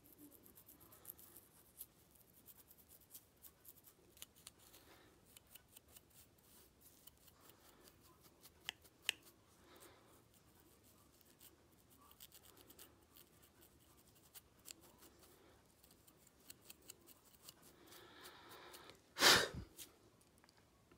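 A fine-tooth comb and fingernails scraping along a scalp crusted with dandruff scales, giving a run of small dry scratching clicks. A single much louder short burst comes near the end.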